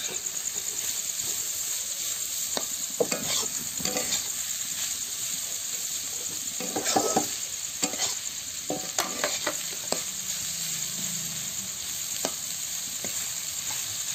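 Sliced bitter gourd, onion and green chillies frying in oil in a black wok, a steady sizzle, while a metal spatula scrapes and knocks against the pan at irregular intervals as the mix is stirred.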